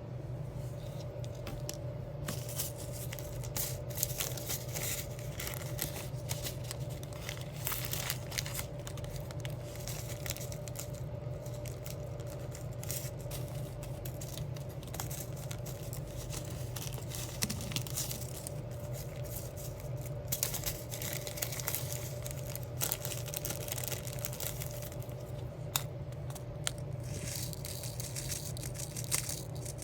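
Crinkling and rustling of plastic-backed sticker sheets being handled and peeled, with scattered small clicks and taps. A steady low hum runs underneath.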